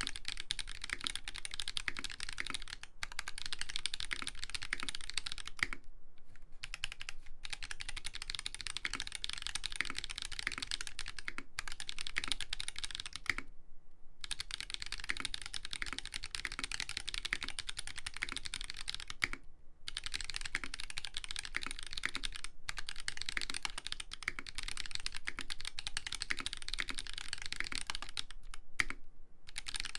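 Steady fast typing on a custom mechanical keyboard with lubed Holy Panda tactile switches on a brass plate, dampened with a silicone sheet, under ABS keycaps. A few short breaks interrupt the typing, the longest about 14 seconds in.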